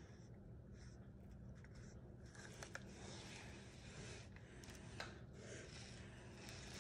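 Near silence: room tone with a few faint clicks, about two close together near the middle and another about five seconds in.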